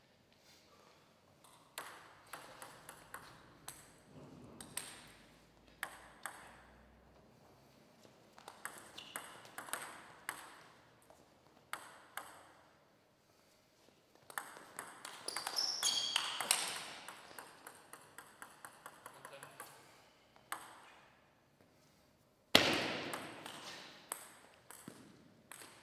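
Plastic table tennis ball clicking off bats and the table, in single bounces between points and quick runs of clicks during rallies. A louder stretch of fast clicks with a brief high squeal in the middle, and a sudden loud thump near the end.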